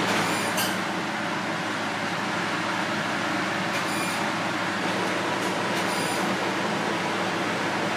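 A steady rushing noise like a kitchen ventilation fan. Three faint metallic clinks of utensils come about half a second in, near the middle, and about six seconds in.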